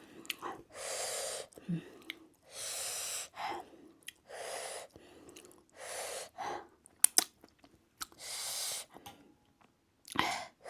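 A person breathing hard through the mouth from the burn of very spicy ramen, a hissing breath about every second and a half, with chewing and small mouth clicks between the breaths.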